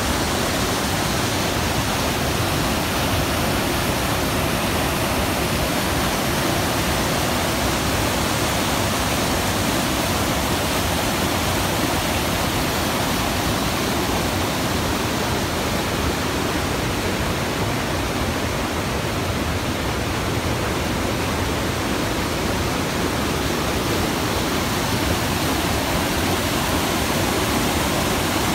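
Fast mountain river rushing over boulders in whitewater rapids: a loud, steady, unbroken rush of water.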